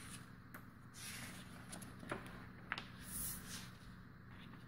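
A sheet of paper rustling and sliding on a wooden table as it is folded in half and creased by hand, with two sharp crackles about half a second apart near the middle and a short hiss of hands sweeping over it soon after.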